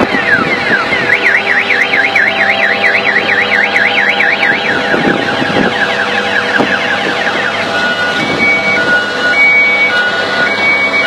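An electronic siren cycles through patterns: repeated falling sweeps, a fast up-and-down warble, then from about eight seconds in a two-tone high-low alternation. Underneath it, farm machinery engines run steadily.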